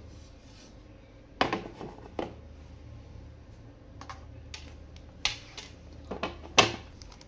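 A plate knocking and clattering against a melamine tray as the two are turned over together: several sharp knocks, the loudest about a second and a half in and again near the end, over a low steady hum.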